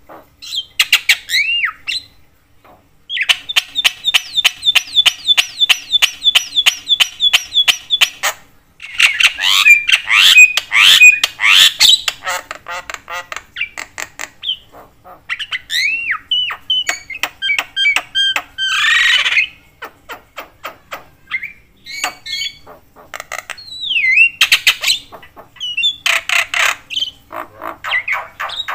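Javan myna (jalak kebo) calling loudly and busily. It gives a fast run of repeated sharp notes at about four or five a second, then harsh squawks and slurred whistles, with short pauses between phrases.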